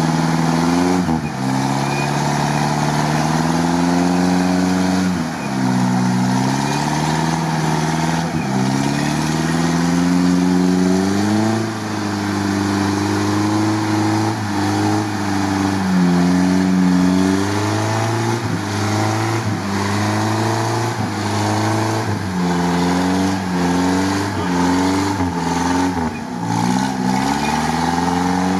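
UAZ off-roader's engine revving under heavy load as it climbs out of a mud hole on its winch line. The pitch drops sharply and then climbs back, again and again, with the dips coming more often in the second half.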